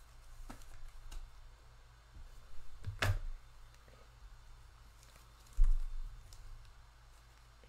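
Hands handling trading cards and packs on a tabletop: scattered light clicks, a sharp click about three seconds in, and a dull thump a little over halfway through.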